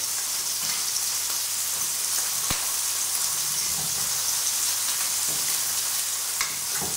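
Oil sizzling steadily in a hot frying pan, with a sharp tick of a metal fork against a ceramic bowl about two and a half seconds in.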